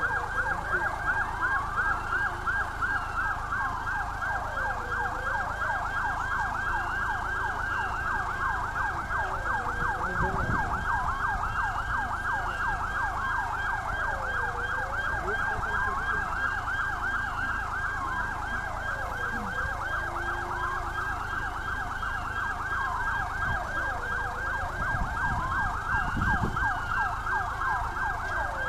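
Siren wailing, a slow rise and fall in pitch about every five seconds over a faster warbling tone: the warning sounded before the blast of a controlled implosion demolition.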